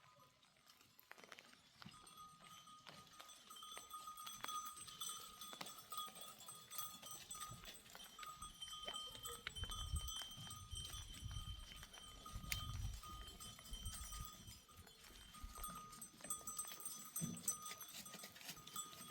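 Faint sounds of a grazing flock of sheep and goats: animal bells ringing on and off, with scattered small clicks and some low rumbling about halfway through.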